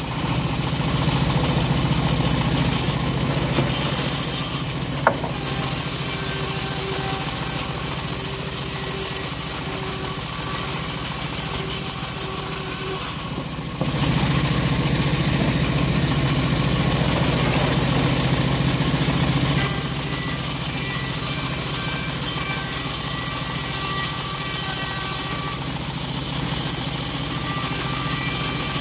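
Homemade bandsaw mill running steadily while ripping a teak board lengthwise. The sound is louder for the first few seconds and again for about six seconds in the middle. There is a single sharp knock about five seconds in.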